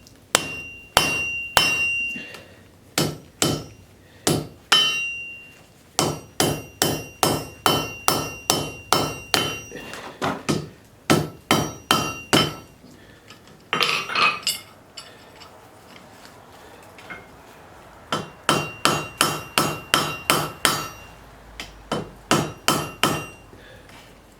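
Blacksmith's hammer striking a hot railroad spike on the anvil: runs of blows about two a second, several with a ringing anvil tone. The blows pause for a few seconds past the middle, then start again.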